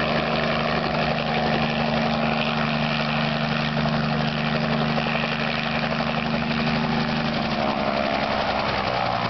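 Light piston-engined helicopter touching down and running on its skids: a steady engine note with rapid rotor chop. The engine note drops lower near the end.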